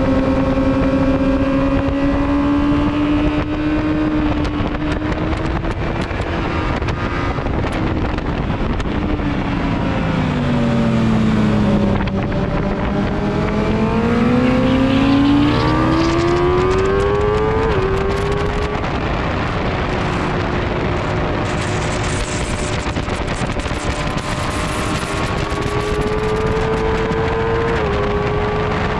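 Sport motorcycle engine at high revs on a racetrack, heard from onboard: the revs fall for several seconds, then climb steadily to an upshift about halfway through, then run high with another upshift near the end.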